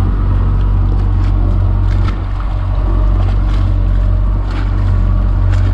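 A small shrimp trawl boat's motor running steadily with a low drone, a few light knocks over it.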